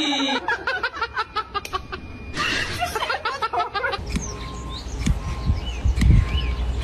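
A person laughing hard in quick repeated bursts. About four seconds in this gives way to wind rumbling on the microphone, with small birds chirping.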